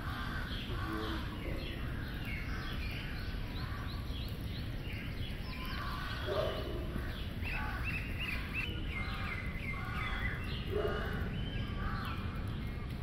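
Many birds calling at once, a dense chorus of short, quick chirps, over a steady low background rumble. A couple of lower, louder calls stand out about halfway through and near the end.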